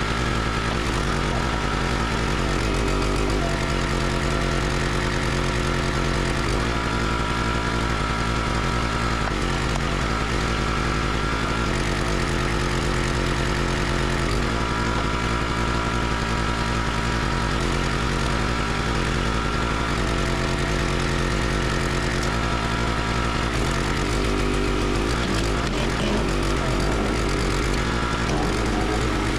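Small gas engine of a Country Line 32-ton hydraulic log splitter running steadily, its sound changing a few times as the ram is driven through logs to split them.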